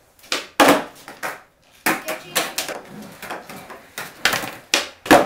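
Skateboard popping and landing on a concrete floor during flatground tricks: a run of sharp wooden cracks and clatters of the deck and wheels hitting the ground, the loudest about half a second in and just before the end.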